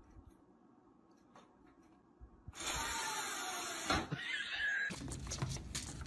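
Faint light ticks, then a sudden loud, noisy rattling rush lasting about two seconds, with a sharp knock near its end. In the last second, a cat's paws skitter and patter on a wooden floor.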